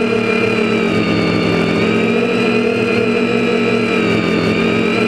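Quadcopter's four Tiger Motor MT2216-9 1100kv brushless motors spinning APC 9x4.7 propellers in fast flight, a steady layered whine and hum whose pitch dips slightly and rises again with the throttle, picked up by the GoPro riding on the frame.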